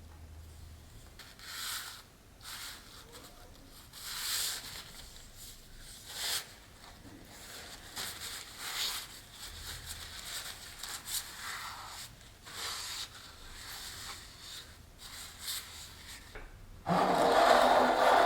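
Repeated short rubbing and scraping sounds of hands handling a potted plant, with a much louder scraping rush lasting about a second and a half near the end.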